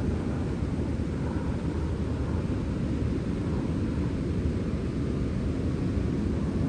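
Sea wind blowing steadily, a low rumble that holds level without gusts or breaks.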